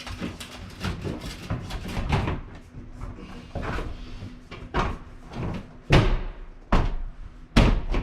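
A run of knocks and clunks, with several sharp loud ones in the second half.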